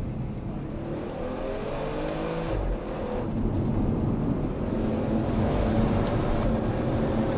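Audi RS6 C7 Performance's twin-turbo 4.0-litre V8 accelerating, heard from inside the cabin: the revs climb, drop briefly at an upshift about two and a half seconds in, then climb again as the engine grows louder.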